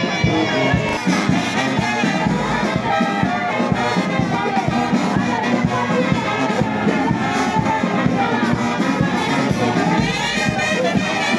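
Brass band with drums playing a march, with a steady drumbeat under the horns, and the noise of a crowd behind it.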